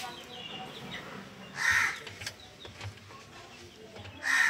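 A crow cawing twice, about one and a half seconds in and again near the end, with faint clicks between the calls.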